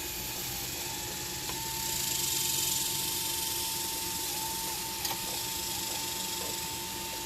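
Hydraulic pump of an RC Liebherr 954 model excavator running with a steady whine and hiss. It swells louder for about a second, about two seconds in, and there is a small click near five seconds.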